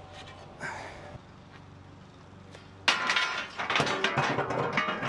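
Heavy steel Ferris wheel part being worked free: a sudden burst of metal clanking, knocking and scraping with some ringing, starting about three seconds in after a few light clicks.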